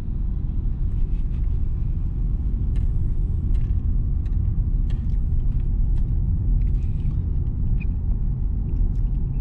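Steady low rumble of a 2022 Mitsubishi Xpander Ultimate CVT's engine and tyres on the road, heard inside the cabin while driving.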